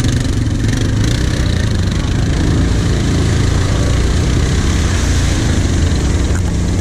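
Quad bike (ATV) engine running steadily at low speed under way, heard from the rider's seat.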